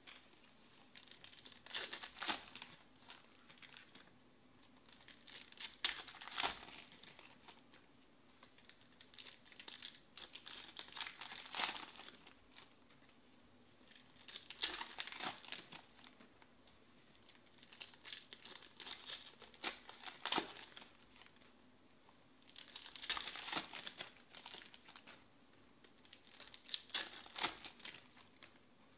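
Foil wrappers of Panini Select baseball card packs being torn open and crinkled by hand, in crackly bursts of one to three seconds that come every few seconds as pack after pack is opened.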